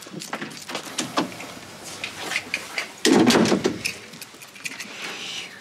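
Toy cars clattering and knocking together on a bed tray, with small clicks throughout and one loud crash-like burst of rough noise about three seconds in.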